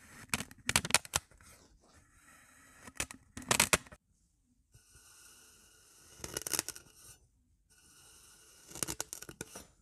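Dense kinetic sand crunching as slotted kitchen spatulas are pressed down through it: four crisp cuts, each a short cluster of crackles, spaced a few seconds apart.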